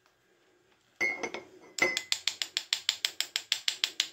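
A wooden spoon clinks against a glass cup, with a short ring, then knocks rapidly and evenly against the glass, about seven knocks a second, as herb powder is worked into garlic paste.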